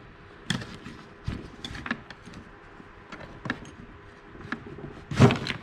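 Scattered clicks and knocks of hand tools working against a Stihl MS250 chainsaw's plastic housing and anti-vibration mount, with a louder clatter about five seconds in as the saw shifts on the bench.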